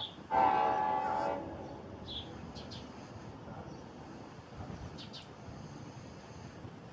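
A train horn sounds one short blast of about a second, near the start.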